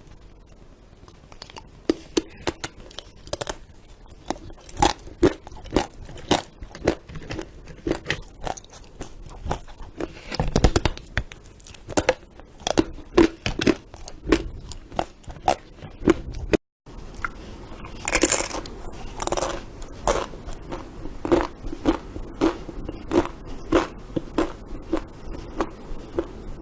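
Loud, crunchy biting and chewing: many irregular sharp crunches close to the microphone, with a short break about 17 seconds in.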